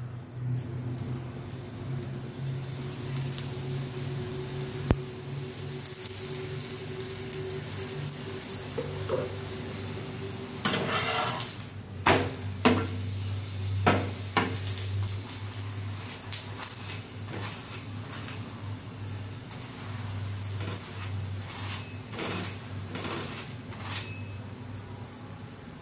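A paratha sizzling in oil on a flat tawa, with a metal spatula knocking and scraping on the pan as it is flipped about halfway through and pressed down again near the end.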